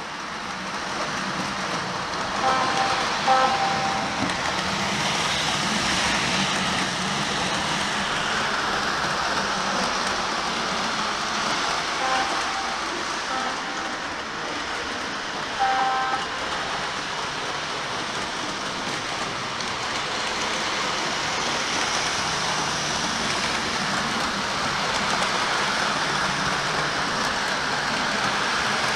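Lionel O gauge NW-2 switcher and freight cars rolling steadily along three-rail track, with a continuous rumble from motor and wheels. A few short horn toots sound about two to three seconds in and again between about twelve and sixteen seconds.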